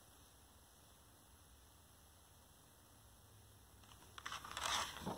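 Faint room hum, then near the end a book's paper page being handled and turned, with a brief burst of crinkling and rustling.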